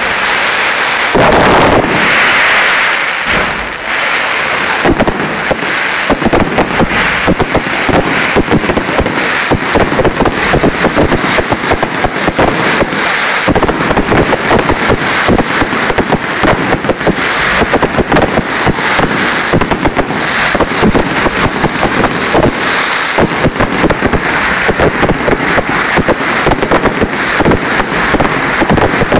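Fireworks fired at close range in a dense, continuous barrage: rapid bangs and crackling, with no pause.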